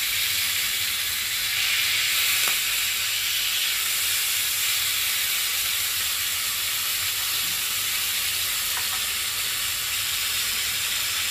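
Two marinated fish steaks with curry leaves sizzling steadily in hot oil in a small frying pan, just turned over to fry the second side.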